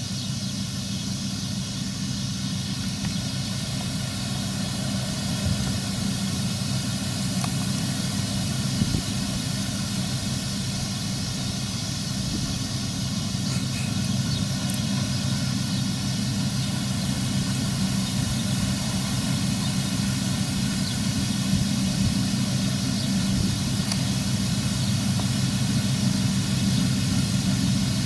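New Holland combine harvester cutting grain, its engine and threshing machinery running with a steady drone that grows gradually louder as it comes closer.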